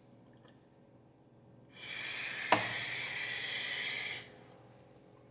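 A steady hiss in the kitchen that starts about two seconds in and stops after about two and a half seconds, with one sharp click partway through.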